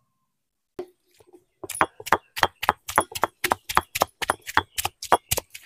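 Stone roller of an ammi grinding stone crushing shallots on the stone slab, a fast, even run of sharp knocks, about five a second, starting about a second and a half in after a single knock.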